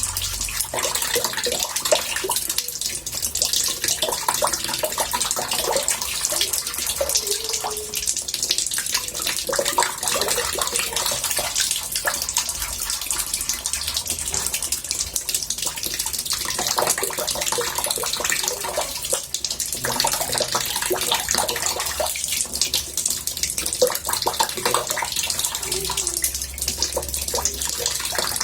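Water running into a bathtub: a steady murmuring rush dotted with many small splashes and drips.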